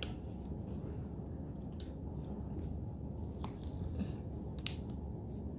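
Chewing a mouthful of salad, with a few sharp clicks of a metal fork against a glass bowl.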